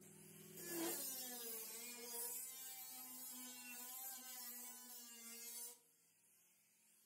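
Handheld cut-off grinder cutting into a steel pickup bed floor: a steady whine that wavers in pitch as the wheel loads up, with a hiss over it. It stops about a second and a half before the end.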